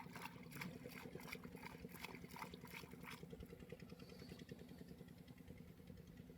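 A small engine idling steadily with a low hum. Over the first three seconds a quick, regular clicking comes on top, about four clicks a second, then stops.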